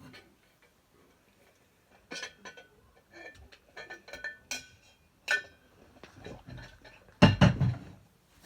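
Small hard objects clinking and tapping as they are handled, with a heavier knock about seven seconds in.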